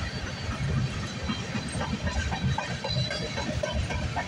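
Freight train of tank cars rolling past, steel wheels rumbling on the rails with irregular clacks over the track, under a steady hiss.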